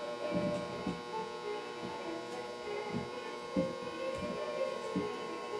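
Cloth rubbing polish over the wooden front of an Ogee clock case, with a few soft knocks as the case is handled, over a steady hum.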